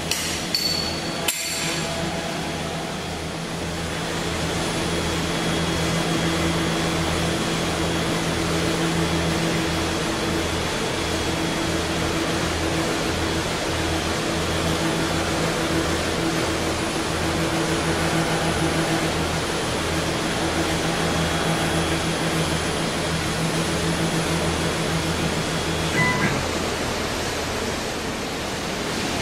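A few clicks from keys on a CNC router's handheld DSP controller, then the router's machinery running as it homes its axes: a steady hum with a low, even pulsing throb and a hiss. It stops about 26 seconds in with a brief beep.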